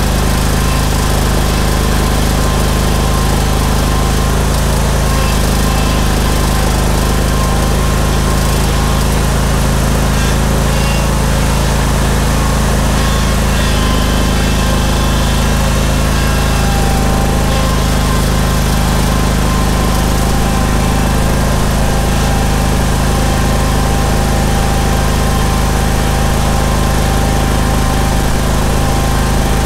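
Vanguard 21 V-twin engine of a Steel Green stand-on sprayer-spreader, running steadily at a constant speed.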